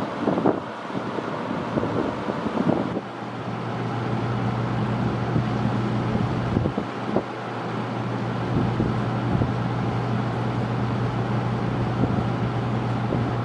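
Early-1980s Torcan 50 cm (20-inch) box fan with five plastic blades running on low speed: a steady rush of air. About three seconds in, a steady low motor hum comes up under the air noise and holds.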